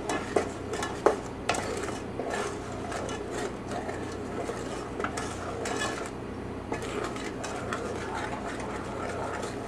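Wooden spoon stirring a thin chocolate mixture in a stainless steel saucepan, scraping and knocking irregularly against the pan's sides and bottom. There are a few sharper knocks in the first two seconds, over a steady low hum.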